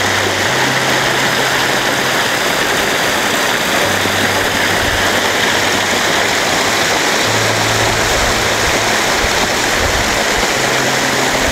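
Small mountain stream rushing over boulders: a steady, even rush of water.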